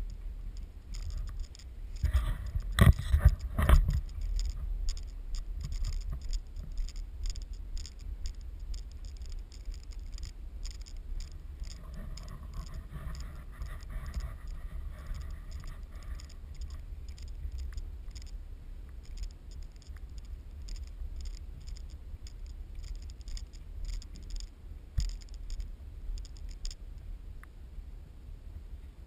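Handling noise of a GoPro in its housing on a ski pole mount as it is carried: scratching and scraping of the camera and pole over a low rumble, with a few loud knocks about two to four seconds in and irregular ticking that stops near the end.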